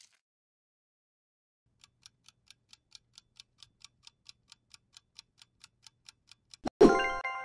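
Countdown-timer sound effect of a ticking clock, about four or five ticks a second, starting about two seconds in. Near the end it gives way to a louder ringing chime of several steady tones, an answer-reveal signal.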